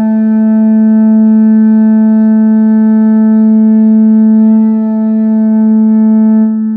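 A deep war horn, a Viking-style battle horn, blown on one long, steady note. A lower tone underneath dies away about a second in, and the note begins to fade near the end.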